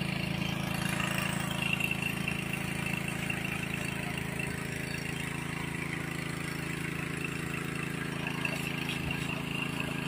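Small Robin gasoline engine running steadily at a constant speed, driving a water pump.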